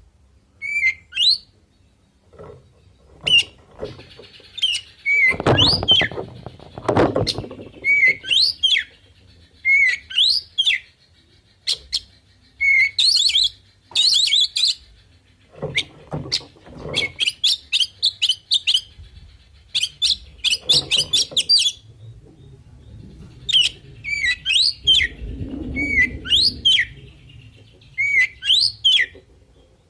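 Oriental magpie-robin (kacer) singing in bursts: short rising whistles and fast, dense chattering phrases, with pauses between them. Several low thumps fall among the phrases.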